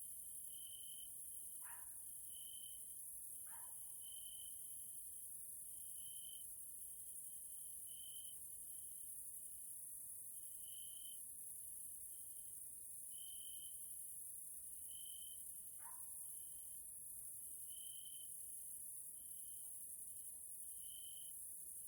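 Evening chorus of singing grasshoppers: a continuous very high-pitched buzz, with a short lower chirp repeating about once a second. Three brief falling notes cut in, twice early on and once a little past the middle.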